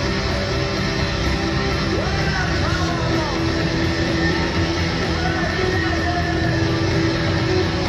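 Live rock band playing loudly with electric guitars, bass and drums, heard from the audience in a concert hall. A few swooping rising-and-falling pitch glides ride over the band in the middle.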